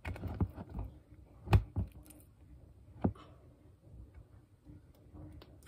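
A spoon stirring slime in a plastic mixing bowl, knocking and scraping against the bowl in a few sharp clicks and knocks, the loudest about a second and a half in and another about three seconds in.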